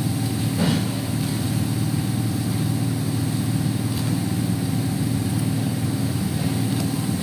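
Steady low mechanical hum, with a brief rustle about half a second in.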